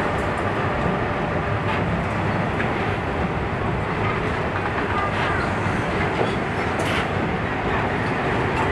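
Container freight train's wagons rolling past close by: a steady rumble of steel wheels on the rails, with a few sharp clicks.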